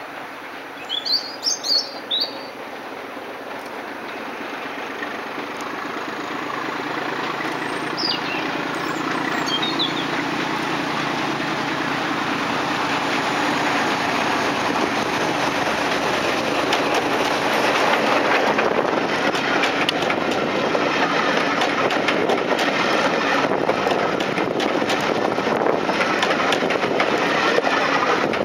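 British Rail Class 14 diesel-hydraulic locomotive D9521, its Paxman Ventura diesel engine running, approaches and grows steadily louder. About two thirds of the way through it passes close by, its wheels clattering rapidly on the rails. A bird chirps a few times near the start.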